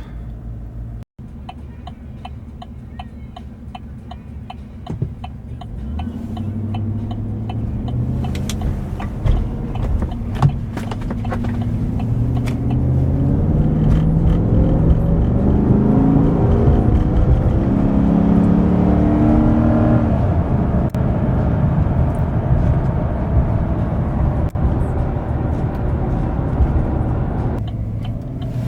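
Chevrolet Silverado 1500 pickup engine under way, its note rising steadily as the truck accelerates from about six seconds in, then holding steady from about twenty seconds. It runs smoothly with the loose cylinder 6 spark plug wire reconnected, which the owner takes for the cause of the misfire.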